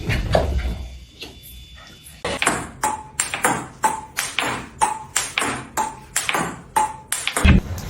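A run of sharp taps, about three a second, starting about two seconds in; roughly once a second a tap is followed by a short ringing ping.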